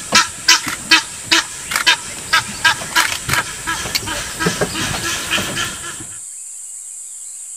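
Egyptian goose honking repeatedly, about two to three calls a second: the agitated alarm calls of a goose confronting elephants. A steady high insect drone runs underneath. The honking stops about six seconds in, leaving faint bird chirps.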